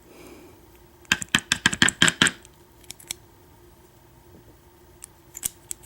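A quick run of light metallic clicks and taps, about a dozen in just over a second, from a disassembled padlock's small steel parts being handled and knocked out. A few scattered clicks follow near the end.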